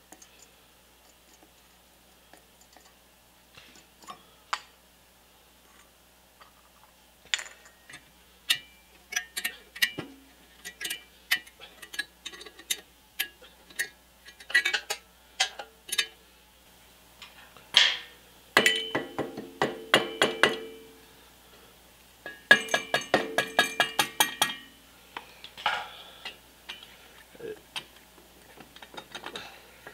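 Metal tools and compressor parts clinking and tapping on a steel bench while an air-compressor pump's cylinder head is taken apart. A little past halfway come two runs of rapid, even clicking, each lasting about two seconds.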